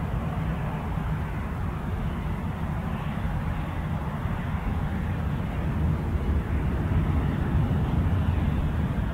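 Rolls-Royce Trent 1000 jet engines of a Boeing 787-9 giving a steady low rumble as the airliner rolls out along the runway after touchdown.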